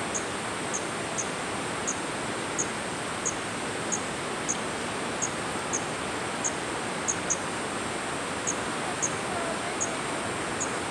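Steady outdoor background hiss with a short, high chirp repeating about every half second to second.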